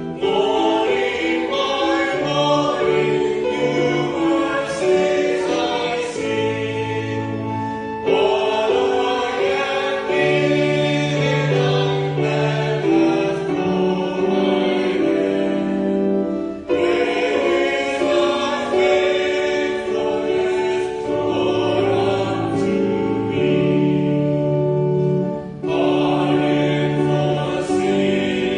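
Many voices singing a hymn together over steady held accompaniment chords, the phrases breaking briefly about every eight seconds.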